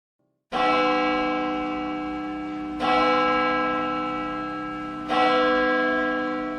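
A large bell struck three times, a little over two seconds apart, each stroke ringing on and slowly fading.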